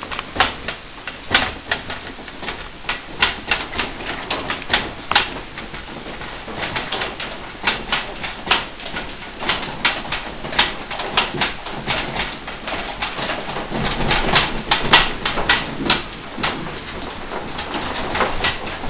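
An apartment rattling as the building shakes in the M9.0 Great Tōhoku earthquake: rapid, irregular clicks and knocks, several a second, over a low rumble. The rattle grows denser and louder about fourteen seconds in.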